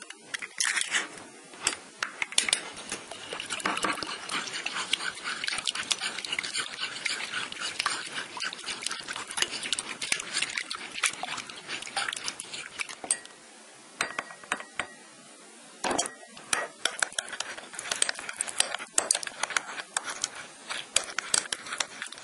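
Raw eggs being beaten in a white tray: a utensil clicks and scrapes rapidly against the tray through the egg, with a pause of about two seconds two thirds of the way through.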